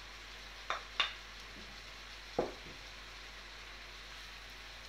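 Shrimp being added to a bowl of rice and seafood filling: a few short clicks and taps of food and utensil against the bowl, the loudest about a second in, over a steady faint hiss.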